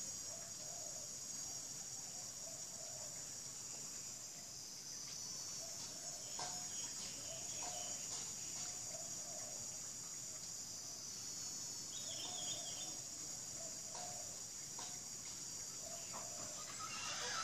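Steady, high-pitched chorus of insects, with short low calls repeating on and off through it and a few faint clicks.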